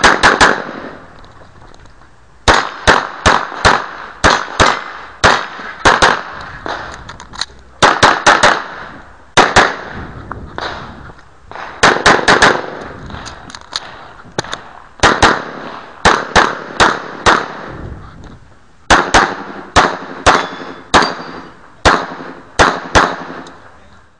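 9mm handgun fired in rapid strings of several shots, with pauses of a second or two between strings; each shot rings briefly.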